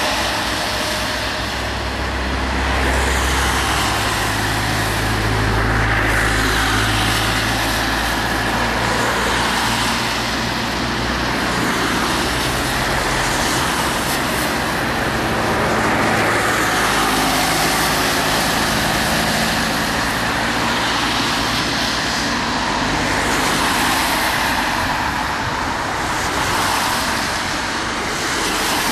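Road traffic: cars passing one after another on a wet road, engine hum and tyre hiss swelling and fading every few seconds.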